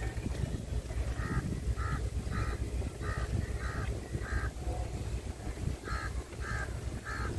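Crows cawing: a run of about six short, harsh calls roughly two a second, a pause, then three more. Under them runs a low wind rumble on the microphone.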